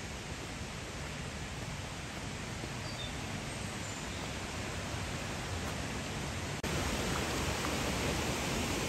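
Steady rushing hiss of a waterfall. It breaks off for an instant about two-thirds of the way through and comes back a little louder.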